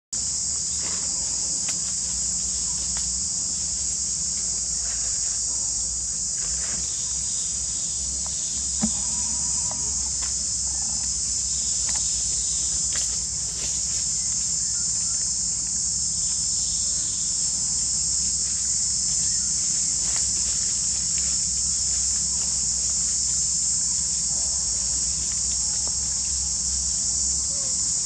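Steady chorus of forest insects: a continuous, dense high-pitched buzz that does not break or change.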